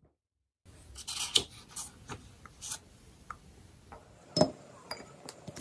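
Small handling noises in a small room: scattered rubbing and scraping with light clicks and a few sharper knocks, starting about half a second in.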